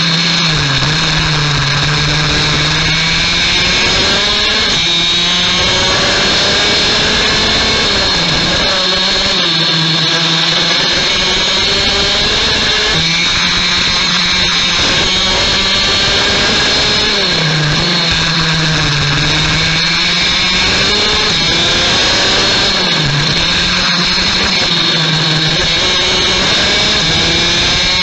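Rotax Max DD2 kart's 125cc two-stroke engine at full racing pace, its pitch climbing on the straights and dropping as it lifts for corners, several times over. A constant high whine runs above it.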